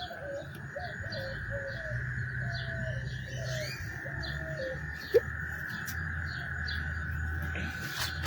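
A chorus of frogs calling after heavy rain: a steady high trill underneath, and over it a run of short, repeated lower calls that stops about halfway through, with faint chirps higher up.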